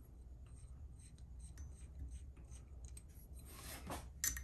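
Faint small clicks as the screw of a metal knife-sharpener clamp is unscrewed by hand. About three and a half seconds in, a short scrape of metal parts being handled, then a few sharp clicks near the end.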